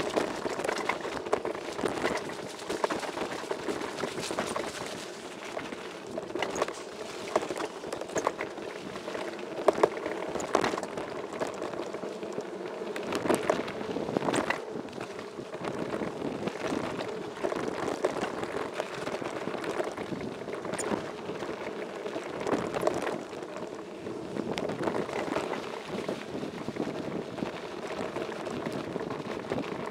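Downhill mountain bike ridden fast over a rough dirt and gravel trail, heard up close: a steady rattling crunch of tyres on loose ground, with many sharp knocks as the bike hits bumps and stones.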